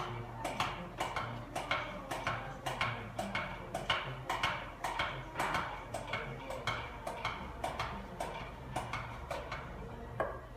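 A steady run of sharp clicks or light knocks, about two a second, over a faint low hum.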